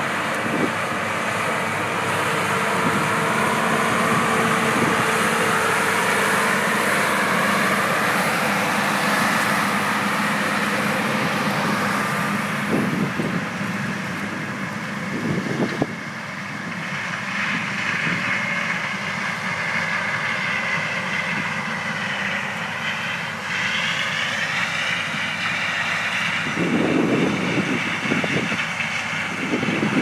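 Diesel engines of harvest machinery running: a four-wheel-drive tractor pulling a grain cart, with a combine working beside it. The engine pitch rises slowly over the first several seconds. After a change about halfway, a higher whine is heard, and heavier engine surges come near the end as the tractor works near the grain trucks.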